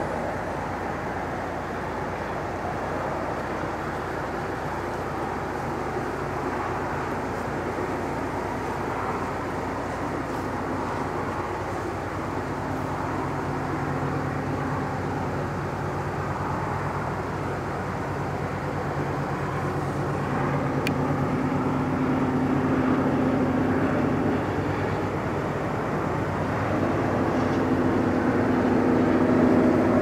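Approaching CN freight train led by GE C44-9W diesel locomotives: a distant rumble that grows louder towards the end. From about 12 seconds in, the locomotive's Nathan K3L horn sounds in several long, drawn-out blasts.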